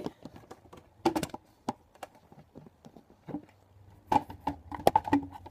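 Handling noise from a phone being moved and repositioned by hand: irregular clicks, knocks and rubbing against the microphone, louder about four seconds in.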